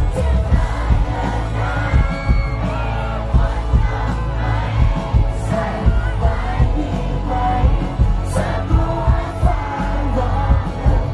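Live pop-rock band playing, with a male lead singer singing into a microphone over bass and a steady drum beat.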